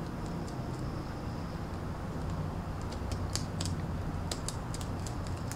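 Pet rabbit gnawing the willow twigs of its woven tent: irregular crisp clicks and crunches, sparse at first and coming thicker in the second half, over a steady low hum.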